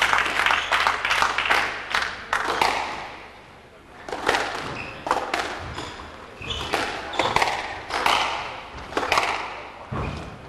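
Squash ball knocks and thuds echoing in a squash court, a string of separate sharp hits roughly every half second after a short lull.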